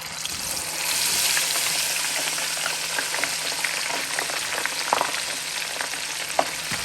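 Frozen seasoned fries frying in hot oil: a dense sizzle that swells over the first second and then holds steady, with scattered pops and crackles.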